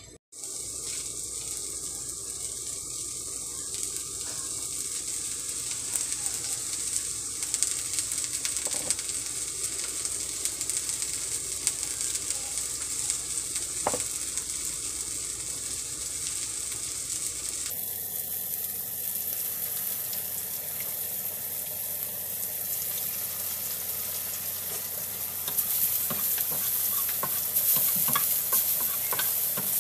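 Egg rolls frying in hot oil in a cast-iron skillet: a steady sizzle. It grows louder and more crackly near the end, when the pan is full of rolls.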